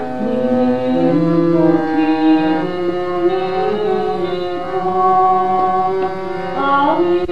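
Background music in an Indian classical style: a melody of held notes that slide between pitches.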